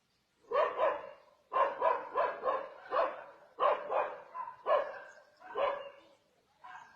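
A dog barking repeatedly in short groups of barks, about a dozen in all.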